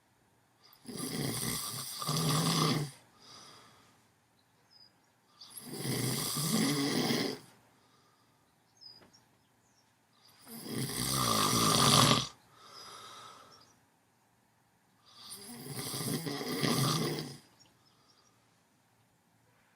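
A sleeper snoring a bit loud: four long snores, one about every five seconds, each a noisy rasp with a buzzing low rattle, some followed by a softer breath.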